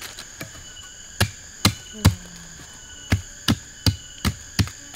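A blade chopping at a wooden stick to sharpen it into a pointed digging stick: about eight sharp chops at an uneven pace, coming quicker in the second half. Insects drone steadily underneath.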